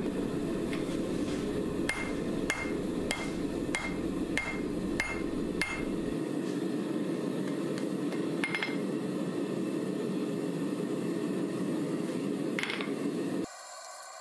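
Hand hammer striking a glowing steel billet on an anvil while it is forge-welded. There are about ten blows a little over half a second apart, each with a short ring, then two more spaced-out blows. Under them is the steady roar of a gas forge burner, which cuts off abruptly near the end.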